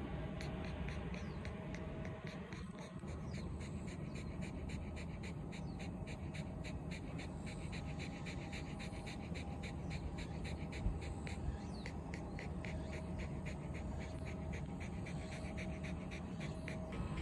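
Shiba Inu panting rapidly and evenly with its mouth open, about four or five breaths a second, a dog cooling itself in the heat. One brief low knock about eleven seconds in.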